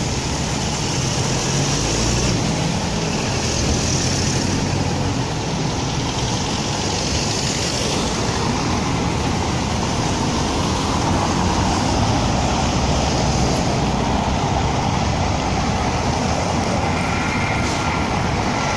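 Steady city street traffic: engines and tyres of passing cars and a larger vehicle, with a low engine rumble strongest in the first few seconds.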